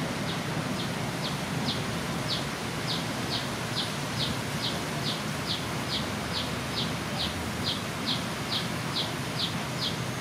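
A bird calling a steady, even run of short high chirps, about two to three a second, over a low background rumble.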